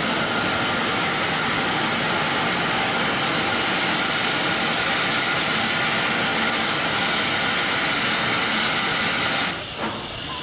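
A steam locomotive venting steam: a loud, steady rushing hiss that cuts off abruptly near the end.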